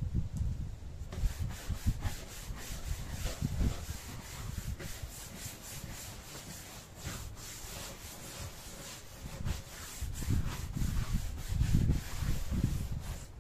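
Rubbing and scrubbing strokes while cleaning a dog crate: an uneven run of rough scrapes, with bumps and knocks in between.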